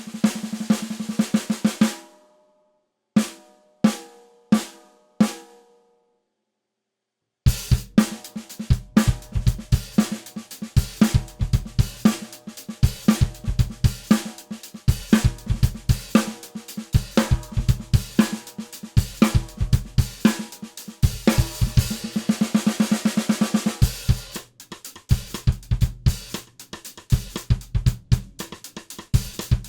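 Ludwig 14x6.5 raw brass Phonic snare drum being played: a quick run of snare strokes, then after a pause four spaced single hits that ring on. After another pause a full drum-kit groove starts, with bass drum and hi-hat under the snare.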